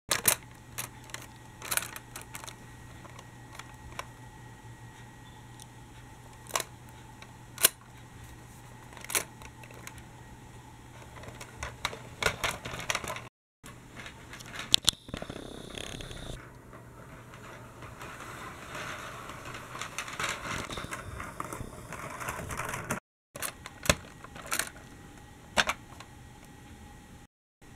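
Plastic clicks and clacks from a toy tram being handled, sharp and scattered, as its roof buttons are pressed and its parts worked. A longer stretch of softer rushing noise sits in the middle, and the sound cuts out briefly a few times.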